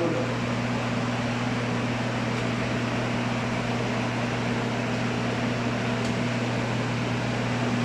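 Steady low mechanical hum with a constant hiss, unchanging throughout, typical of a fan or ventilation unit running.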